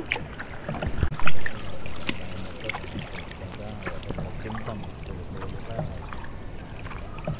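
Small boat under way on calm water, with water washing and slapping against the hull and a brief loud rush about a second in.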